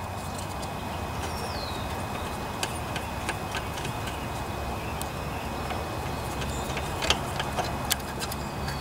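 Scattered small metallic clicks and taps from hands working the carburetor's choke linkage and mounting hardware on a Briggs and Stratton lawnmower engine, over a steady low hum.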